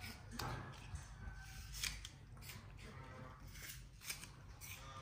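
Baby monkey eating apple: irregular crisp crunching and chewing clicks, several a second.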